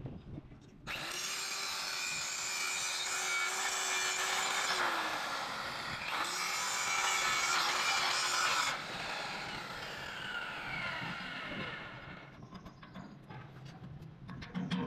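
Electric power tool grinding steel in two long passes with a short break between, its motor then winding down about nine seconds in.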